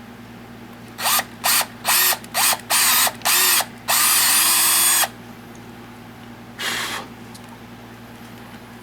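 Small power drill with a 3 mm bit boring a hole through a brass battery contact: the trigger is blipped in about six short bursts, each spinning up with a rising whine, then held for a steady run of about a second, followed by one fainter short burst.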